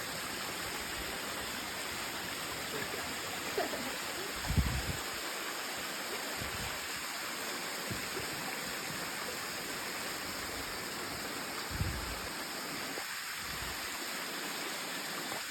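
Waterfall: water falling and rushing in a steady, even hiss. Two brief low thumps come about a third of the way in and again near the end.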